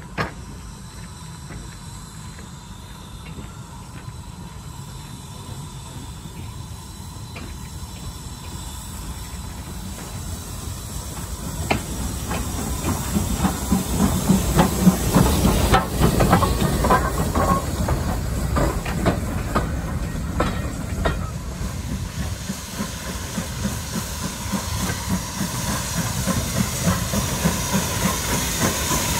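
BR Standard Class 2MT 2-6-0 steam locomotive No. 78018 comes in with its train, growing louder as it nears, and its wheels click over the rail joints as it passes close. From a little past two-thirds in, the engine stands with a steady hiss of steam.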